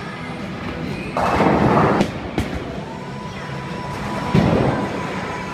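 Bowling alley noise over background music: a short burst of rumbling noise about a second in, a sharp knock a moment later, and another thud near the end, from bowling balls and pins.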